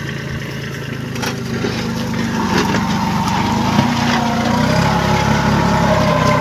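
Kubota 21 hp mini tractor's diesel engine running steadily as it pulls a ridger and fertiliser box through the soil, growing louder from about a second in, with a few faint clicks.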